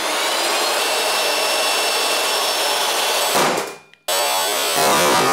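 SawStop table saw running at full speed with a steady whine. About three seconds in, the blade touches a sausage and fires the skin-detecting brake: a sharp bang, and the running sound dies away within about half a second as the blade is stopped and dropped below the table. Just after, a different loud sound starts abruptly.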